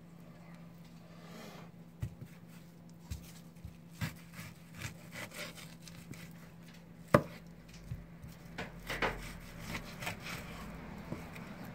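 Knife slicing through a bluefin tuna collar on a cutting board: soft cutting and scraping with scattered taps, and one sharp knock about seven seconds in. A steady low hum runs underneath.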